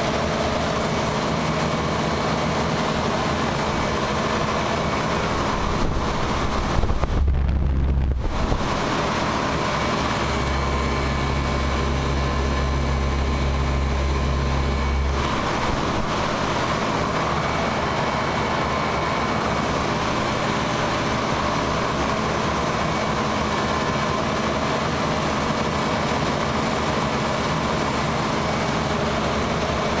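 Lennox heat pump outdoor unit running: its four-blade condenser fan turns with a steady rush of air over an even machine hum. A deeper rumble swells for a few seconds near the middle.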